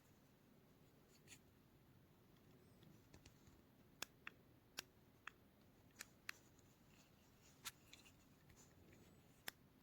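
Faint room tone with scattered small, sharp clicks and taps, about a dozen, mostly in the second half.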